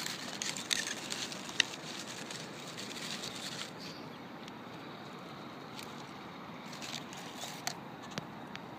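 A few small clicks and crinkles of a burger being handled in a paper food tray, over a steady background hiss of outdoor ambience.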